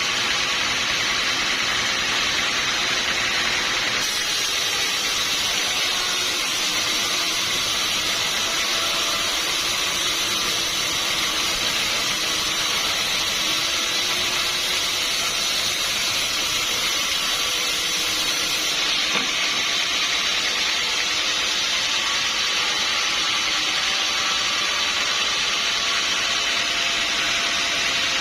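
Sawmill saw running through timber with a steady hissing whine; the sound turns brighter and hissier from about four seconds in until about nineteen seconds in.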